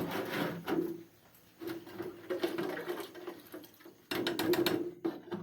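The plastic diffuser dome of a 9W LED bulb being pressed and twisted onto the bulb's housing, giving plastic-on-plastic rubbing with rapid clicks. It comes in three bouts, with short pauses between them.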